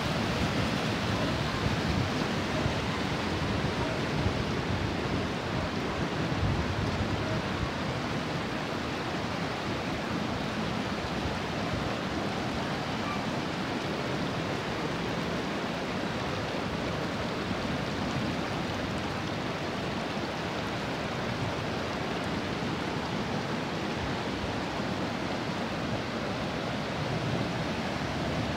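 Muddy floodwater after rain, rushing steadily across a road and spilling over its edge, slightly louder in the first several seconds.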